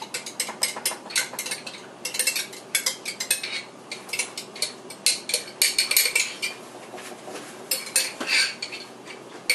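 A metal spoon scraping and clinking against the inside of a glass jar as thick Alfredo sauce is spooned out, in a quick, irregular run of clinks and scrapes that eases off for a moment past the middle.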